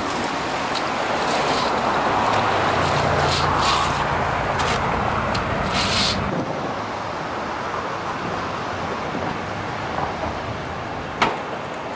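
City street traffic: a vehicle passing with a low engine hum that builds and fades over the first six seconds, then a quieter steady traffic background. A few sharp clicks are heard, one of them near the end.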